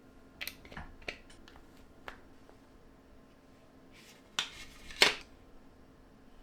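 Handling noises from unboxing: a cluster of light clicks and taps in the first second or so, another tap around two seconds in, then two short, louder rustling scrapes about four and a half and five seconds in.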